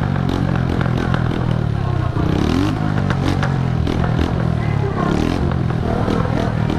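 Honda CG125 single-cylinder motorcycle engine running loud through its exhaust, the revs rising about two seconds in.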